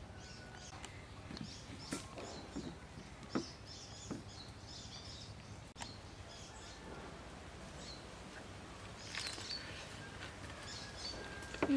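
Faint background birdsong, small high chirps scattered throughout, over a low steady hiss, with a few soft clicks and taps.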